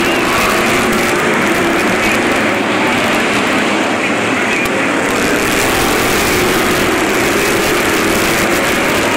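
A pack of figure-8 race cars running flat out around a paved short track, their engines merging into one loud, steady din, heard through a phone's microphone.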